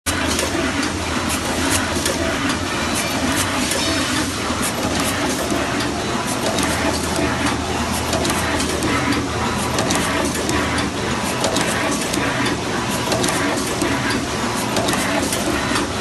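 EW-21C automatic two-wire crimping machine running, making a dense, steady clatter of rapid clicks and knocks over a continuous machine hum.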